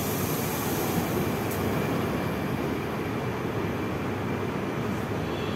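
Steady low rumble and hum inside a metro car standing at a station platform with its doors open.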